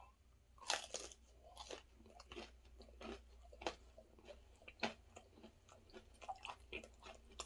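Person biting into and chewing a fried vegetable samosa with a potato filling: a sharp crunch of the pastry shell about a second in, then irregular crunching while chewing.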